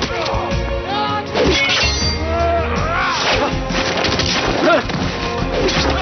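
Fight-scene soundtrack: dramatic background music with men shouting and grunting over the whacks and crashes of blows and sword strikes.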